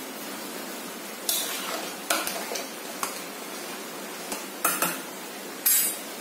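A metal spoon clinking and scraping against a steel pressure-cooker pot of boiled rice: a string of short sharp clatters over a steady background hiss.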